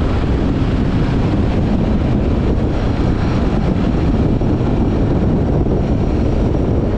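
Motorcycle cruising at freeway speed: a steady wind rush on the microphone over a low rumble of engine and road noise.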